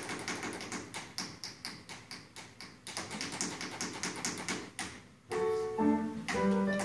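A fast run of light, typewriter-like clicks standing for the typing in the speed test, over the stage musical's accompaniment. About five seconds in the clicking stops and the pit orchestra comes back in with held notes.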